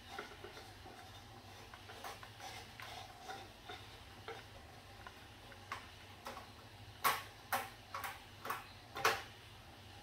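Wire basket of a bulb-changer pole clicking against a plastic remote-control lamp holder as it is twisted into a ceiling socket. Faint scattered ticks, then a quick run of about six sharper clicks from about seven seconds in.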